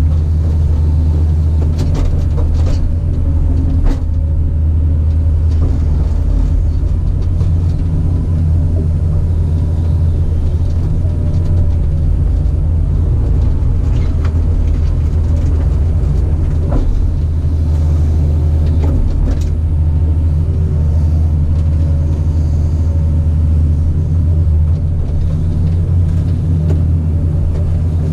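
Caterpillar 973C track loader's diesel engine running steadily, with a few short knocks and clanks now and then.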